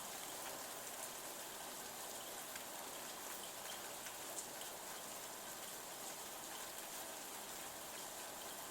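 Light rain falling steadily on a window pane, an even patter with the odd sharper drop tick.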